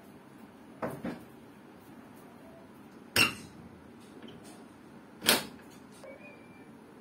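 Pages of a paper question booklet being handled and turned: a soft double rustle about a second in, then two louder, sudden paper flaps about three and five seconds in.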